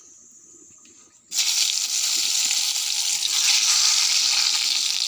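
Brinjal slices sizzling in hot oil in a kadai, the sizzle starting suddenly about a second in as the slices go in and holding steady: the slices are being half-fried.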